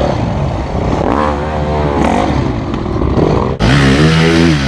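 Dirt bike engines revving up and down under load, the pitch rising and falling with the throttle. About three and a half seconds in, the sound cuts abruptly to another dirt bike engine revving hard, which dips and then climbs again.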